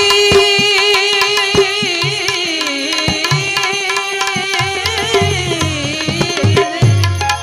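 Santvani devotional folk song: a male singer holds one long wavering note that dips in pitch twice and ends shortly before the close, over tabla strokes and harmonium.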